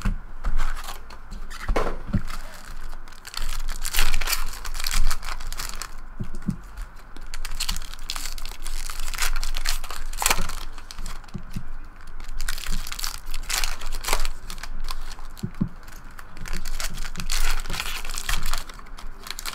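Foil wrappers of 2012-13 Upper Deck SP Authentic basketball card packs being torn open and crinkled in quick, irregular rips.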